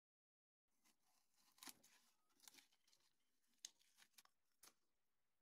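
Faint scraping, crackling and tearing as a metal scraper pries milled plywood off painter's tape on the CNC router bed, with sharp clicks about once a second. It starts a little under a second in.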